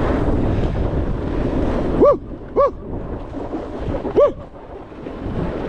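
Wind rushing over the microphone while snowboarding, broken by three short, loud pitched chirps that rise and fall, two close together about two seconds in and one about four seconds in.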